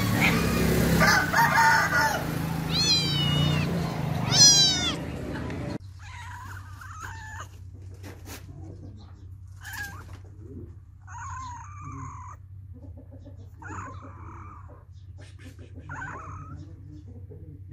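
Cats meowing. A few loud, high meows, the loudest about four and a half seconds in, over a noisy background. The background then drops away suddenly, and a run of softer, shorter meows follows every second or two.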